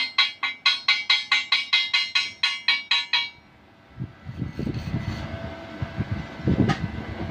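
Rapid, evenly spaced metal strikes on ringing steel, about four a second, that stop about three seconds in. After a short pause, low wind rumble on the microphone.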